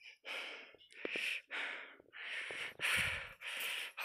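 A person breathing hard and fast close to the microphone, about six quick breaths in four seconds: panting from the climb on a high-altitude mountain trail.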